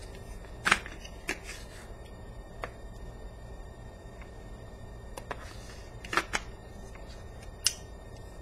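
Handling noise: a scatter of short, sharp clicks and rustles, the loudest about a second in and a close pair past the six-second mark, over a steady low hum.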